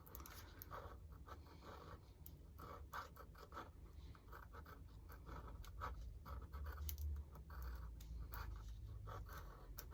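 Faint, irregular scratching of short drawing strokes on tracing paper, as a pre-drawn design is traced over to transfer it onto the painting surface.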